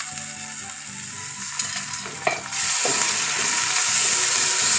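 Onions, green chillies and ginger-garlic paste sizzling in hot oil in a stainless steel pan, with a metal spatula scraping and stirring. About halfway through the sizzle turns suddenly louder as the paste is stirred into the oil.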